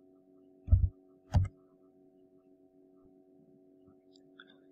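Two keyboard key presses about half a second apart, heard as short thumps with a click on top, over a faint steady hum.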